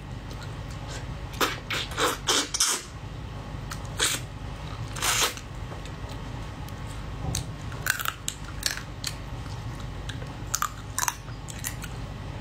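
Crab being eaten: chewing and cracking of crab shell, with irregular sharp clicks and crunches as shell pieces are picked at on a cutting board. A steady low hum runs underneath.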